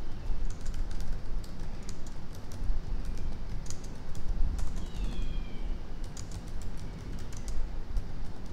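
Typing on a computer keyboard: a run of irregular key clicks as a short phrase is typed, over a low steady hum.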